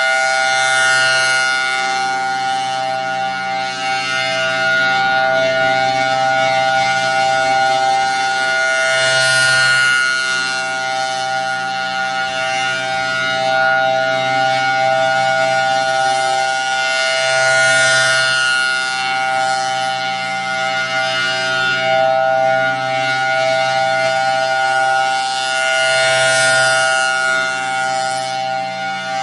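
Federal Signal Thunderbolt 1003 rotating outdoor warning siren sounding the full alert: a steady, unbroken wail of two close pitches, swelling and fading in loudness about every eight to nine seconds as the rotating horn sweeps past.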